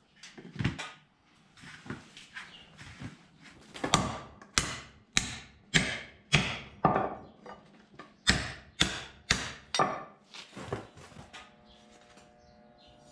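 Hand hammer striking a 416-stainless-clad san mai blade blank laid on a wooden block: first a few lighter knocks, then two runs of sharp ringing metal strikes about every half second, six and then four, with a short pause between.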